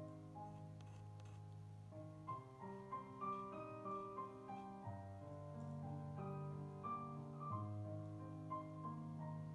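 Background piano music: a slow melody of single notes over held bass notes that change every few seconds.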